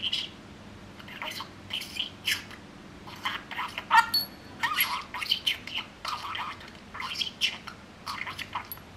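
Budgerigar chattering in quick bursts of warbles and squawks, the babble of a talking budgie.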